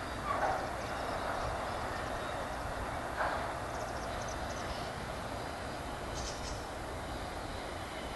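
Freight train cars rolling past on the rails, a steady rolling rush, with two brief clanks, one right at the start and one about three seconds in.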